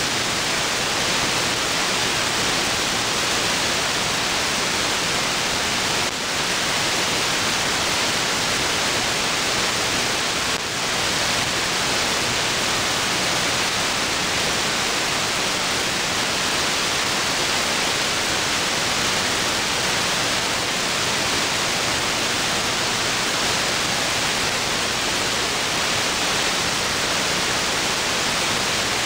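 Steady static hiss from an SDR receiver in AM mode, tuned to an empty aircraft-band air traffic control channel between transmissions. The hiss dips briefly twice, about 6 and 10 seconds in.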